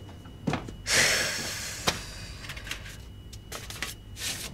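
Refrigerator door pulled open, its seal letting go with a short rush of noise about a second in, then a sharp click and a few light knocks as plates of cheesecake are lifted off the shelf.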